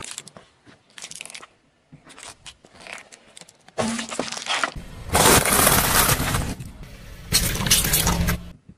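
Car tyre rolling over and crushing plastic containers and Orbeez: crackling and crunching, with liquid squirting out. The crushing is loudest from about halfway through and again near the end, after a few seconds of lighter crackles.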